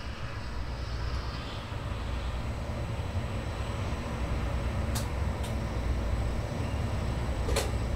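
Railway locomotive noise: a steady low rumble with a few sharp clicks about five seconds in and again near the end.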